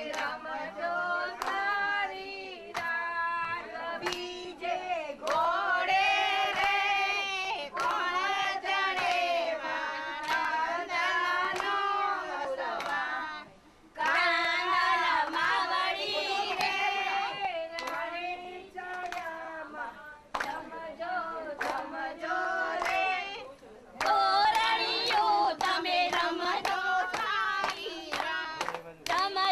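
A group of women singing a devotional folk song together, with rhythmic hand clapping for a circle dance. The singing pauses briefly twice, with the clapping running through.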